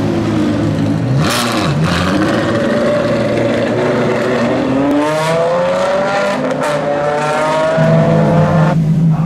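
Ferrari 599XX's V12 pulling away, with a brief burst of revs about a second in, then the engine note climbing steadily as the car accelerates. Near the end it gives way to a steady low engine note from another car.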